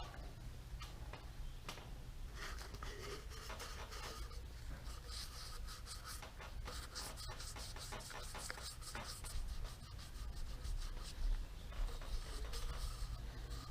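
Cloth rubbing a shellac-and-linseed-oil finish onto a turned cherry bowl: irregular scratchy rubbing strokes over a steady low hum.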